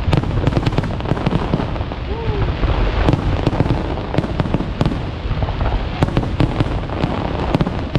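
Aerial fireworks going off in quick succession: a continuous rumble of booms with many sharp cracks throughout.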